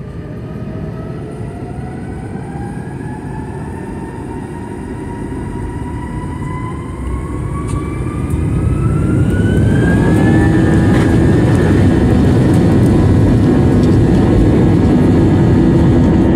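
Airliner jet engines spooling up for takeoff, heard from inside the cabin. A whine rises steadily in pitch for about ten seconds and then holds steady, while the engine noise and rumble grow louder about eight seconds in and stay loud through the takeoff roll.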